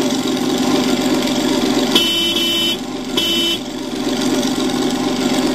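Sound unit of a 1/6-scale Tiger 1 model tank playing a steady engine rumble, with two short horn blasts about two and three seconds in.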